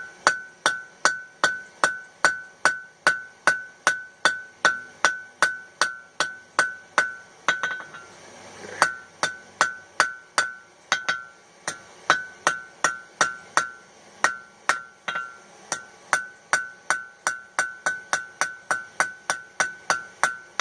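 Hand hammer striking hot mild steel flat stock on an anvil, steady blows about two a second, each with a clear ringing anvil tone, with a short pause about eight seconds in. The smith is scarfing (tapering) the end of the bar so it will blend in when folded for a forge weld.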